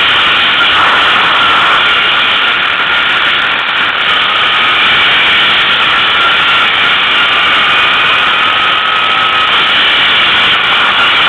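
ATV engine running steadily as the quad rides along, a loud unbroken noise with a faint whine that wavers slightly in pitch.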